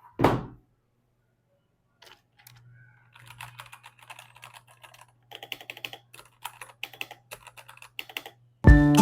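Typing on a Royal Kludge RK96 mechanical keyboard: a quick, uneven run of key clicks and clacks. It opens with one brief, loud thump, the loudest sound here, and music comes in just before the end.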